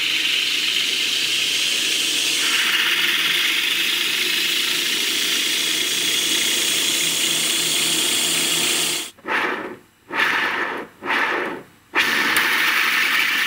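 A larger ball bearing motor, two ball bearings on a metal shaft fed with a heavy current, spinning with a steady hissing whir. The sound cuts out sharply and comes back three times near the end.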